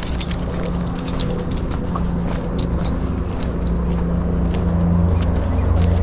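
Steady low hum and rumble of motor traffic, growing louder toward the end, with scattered light clicks over it.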